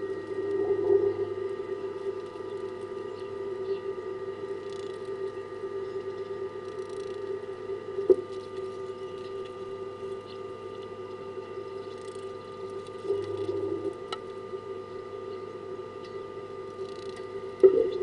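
A steady low hum of several fixed tones, with a few faint high bird chirps scattered through it. A sharp knock comes about eight seconds in and again near the end.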